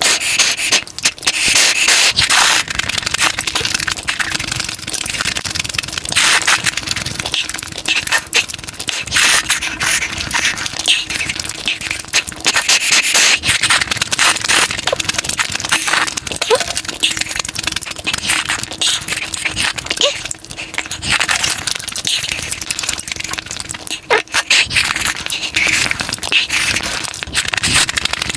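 Close-miked eating sounds: continuous crunching and crackling chewing, dense clicks and cracks with no pause.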